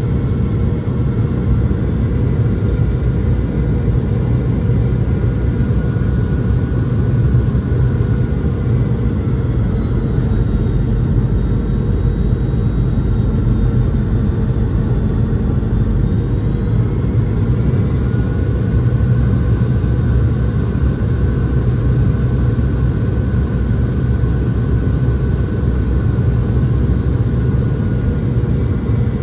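Cabin noise of a Boeing 717-200 on final approach: the steady low rumble of its Rolls-Royce BR715 turbofans and airflow, with faint high engine whines that sag a little in pitch and then rise again past the middle.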